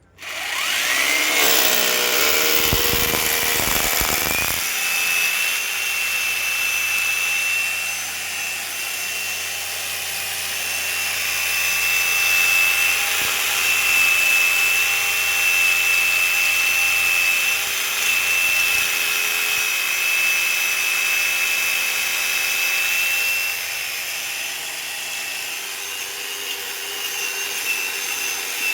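Electric power drill starting with a whine that rises in pitch over the first second or so and grinds heavily for the first few seconds, then runs on at steady speed with a high whine.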